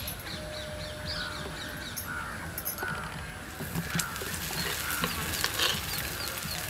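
Crows cawing over and over, two to three calls a second. From about halfway a crackling sizzle joins in: ghee spooned onto a bobbattu on the hot pan.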